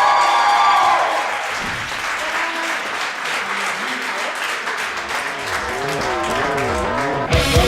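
Gym crowd applauding over faint music. Near the end, loud rock music with electric guitar cuts in suddenly, typical of a wrestler's entrance theme.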